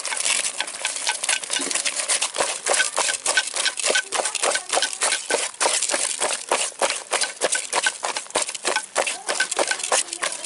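Shelled snail meat being scrubbed with salt by hand in a clay pot: quick, wet squelching and scraping strokes, about four a second. The salt scrub works the slime off the meat.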